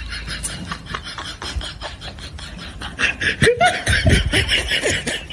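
A rapid run of short clicking sounds, with laughter coming in louder about three seconds in.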